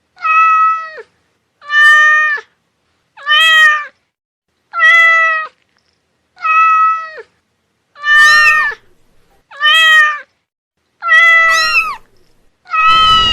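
Domestic cat meowing over and over, nine drawn-out meows about one every one and a half seconds, each falling in pitch at the end.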